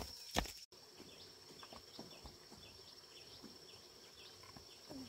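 Faint outdoor ambience: a steady high insect-like buzz with many short falling chirps, after a couple of knocks in the first second.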